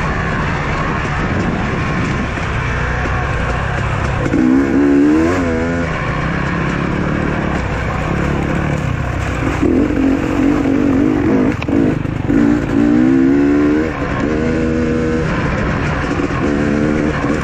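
Off-road dirt bike engine running under load, the revs rising and falling several times as the throttle is worked, over a steady rumble.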